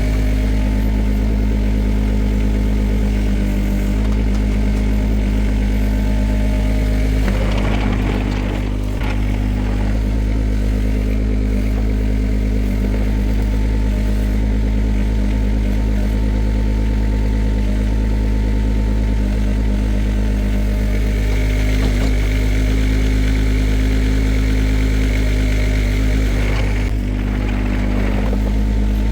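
Shantui STE35SR mini excavator's diesel engine running steadily. Two brief rough noises come over it, about eight seconds in and near the end.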